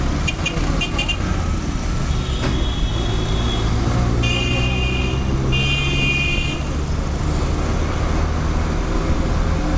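City bus at a stop in busy street traffic: a steady low engine rumble, with vehicle horns sounding over it — a few quick beeps in the first second, then a held toot, then two longer honks about four and five and a half seconds in.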